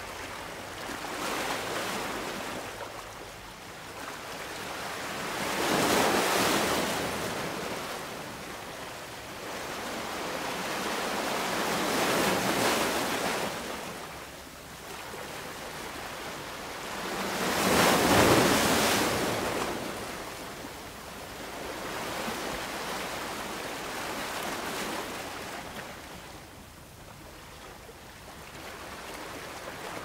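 Sea waves breaking and washing ashore: a rushing surf that swells and fades every five or six seconds, loudest about six, twelve and eighteen seconds in.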